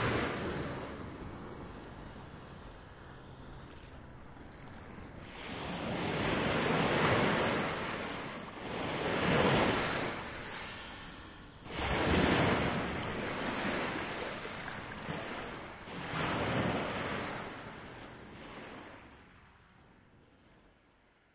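Ocean surf: a steady wash with waves swelling and breaking every few seconds, dying away over the last few seconds.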